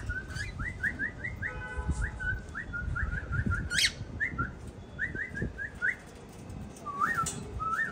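Caged cockatiels calling: a fast run of short, rising whistled chirps, several a second, then two longer upswept whistles near the end. A sharp click sounds a little before halfway.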